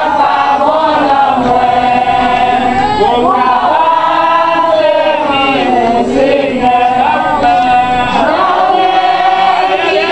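A congregation of men and women singing a sacred chant together in Haitian Creole, unaccompanied, in long held notes that rise and fall slowly.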